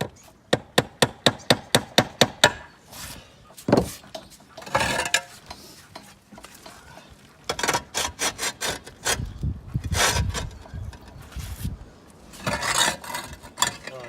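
Roofing work as the last pieces go on: a quick run of about ten sharp knocks, roughly five a second, then scattered knocks and scraping.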